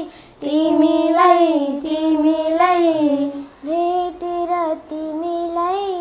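Young schoolgirls singing a Nepali song in long held, wavering notes, phrase by phrase, with short breaks for breath near the start and about three and a half seconds in.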